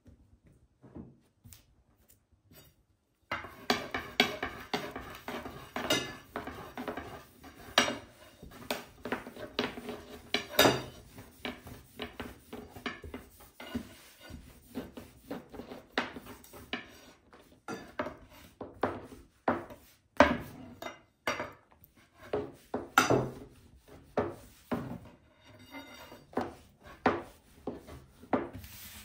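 A long, thin metal rolling pin (oklava) rolls out a sheet of dough on a floured wooden table, starting about three seconds in. It makes a quick, irregular run of knocks and clacks as it rolls and taps against the tabletop.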